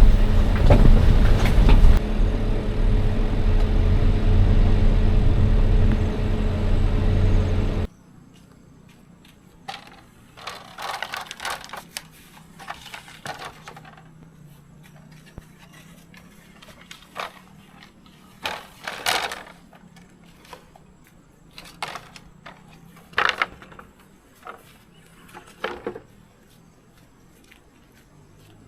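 A steady engine rumble that cuts off abruptly about eight seconds in. Quiet scattered clicks, rustles and light knocks follow.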